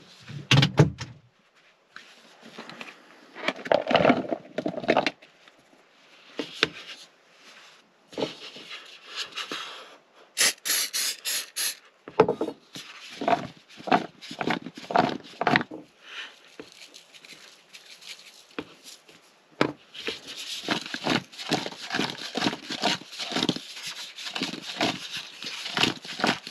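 Sliced zucchini and yellow squash tipped into a bowl and tossed, the pieces rustling and knocking against the bowl in quick repeated shakes. About ten seconds in there is a short hiss from an aerosol avocado-oil cooking spray.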